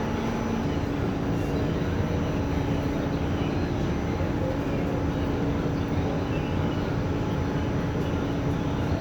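R46 subway car running on the track, a steady rumble of wheels and running gear. A steady hum under it shifts slightly higher in pitch about half a second in.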